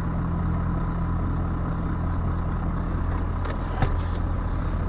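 Truck's diesel engine idling steadily, heard inside the cab, with a few sharp clicks and a brief hiss near the end.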